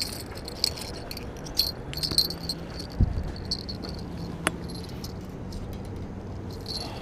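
Light clinks and rattles of fishing gear being handled, coming irregularly, with a single dull knock about three seconds in.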